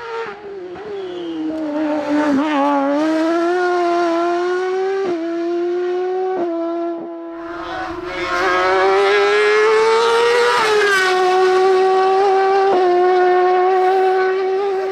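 Silver Car hillclimb racing car's engine at high revs as it climbs past, the note rising and cutting back sharply at several quick gearshifts. It eases off for a moment about halfway through, then pulls hard again, loudest in the second half, before changing up and carrying on.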